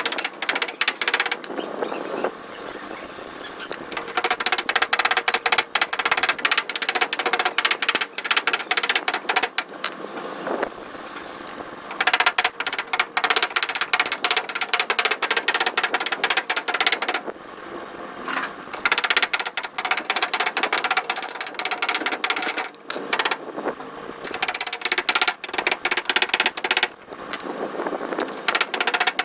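Rapid repeated hammering on a car's body panel, in bursts of several seconds with short pauses between.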